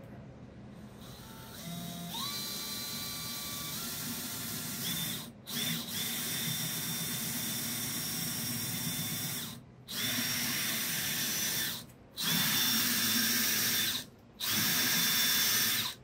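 Cordless DeWalt drill with a twist bit boring recessed holes into a plywood countertop. The motor winds up with a rising whine, then runs in five spells of steady whine broken by brief stops, the last spells short.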